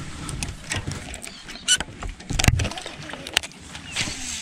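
Scattered knocks and clicks of fishing gear being handled in a boat, the loudest about two and a half seconds in, over a light steady noise.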